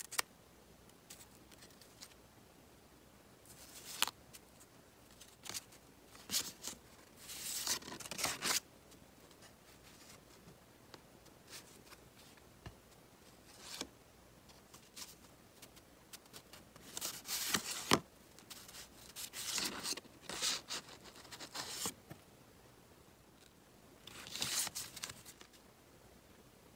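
Sheets of thick patterned scrapbook paper handled by hand, fanned, slid over one another and flicked. The result is bursts of dry rustling and swishing with a few sharp snaps, separated by quiet pauses.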